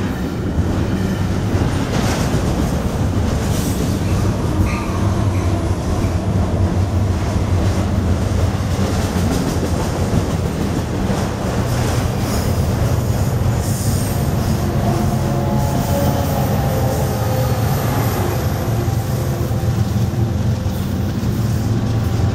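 Freight train of double-stack container well cars and autorack cars rolling steadily past, a continuous rumble of steel wheels on rail. Faint wheel squeal rises over it in the second half.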